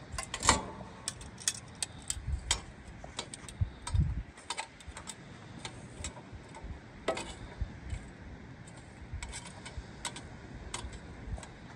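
Charcoal briquettes clicking and clacking against one another as they are set out one by one, in irregular sharp clicks. The loudest comes about half a second in, with a low thump about four seconds in.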